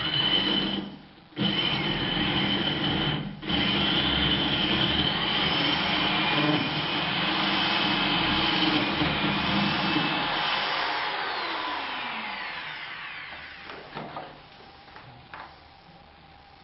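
Power drill fitted with a 68 mm core bit boring a socket-box hole in the wall. It runs steadily, stops briefly twice near the start, then spins down with a falling whine about ten seconds in, and a few light knocks follow.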